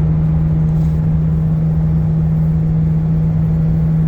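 Car at highway speed with a steady low hum over road rumble from a bad wheel bearing. The driver first took it for a dragging brake, and it comes on after about 35 miles of driving.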